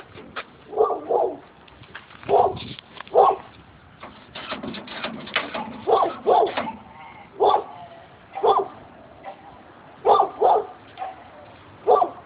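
A dog barking repeatedly, short barks often in pairs about every second or two, with scattered sharp clicks between them.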